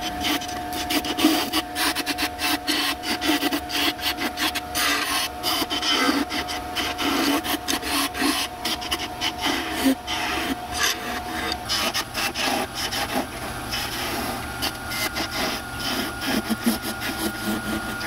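Turning tool cutting a spinning wooden spindle on a wood lathe: uneven, rapid scraping as the edge shaves the wood, over the steady hum of the lathe.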